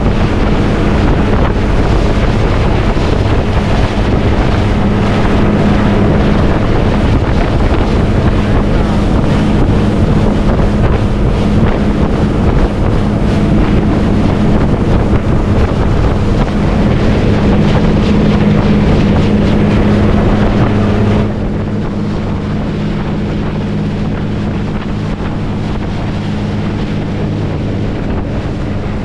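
Motorboat engine running steadily, with rushing wind and water noise on the microphone. About three-quarters of the way through, the rushing noise suddenly drops and gets quieter while the engine keeps running.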